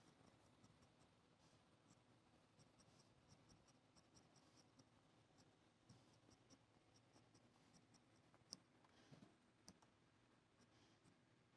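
Large tailor's shears cutting through suit cloth: faint, repeated snips and blade clicks, with one sharper click about three quarters of the way through.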